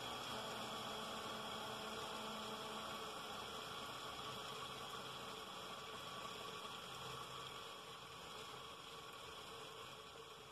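Split-phase induction motor running with a faint, steady electrical hum that grows gradually fainter.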